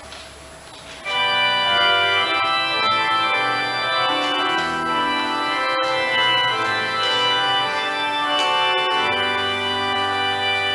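An organ starts playing a hymn about a second in, in sustained held chords that change every second or so.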